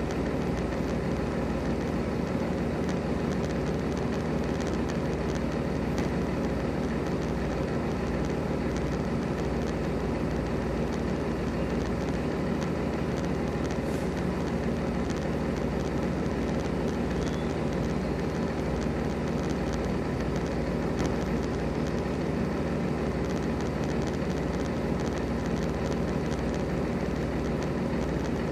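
Diesel engine of a semi truck idling steadily.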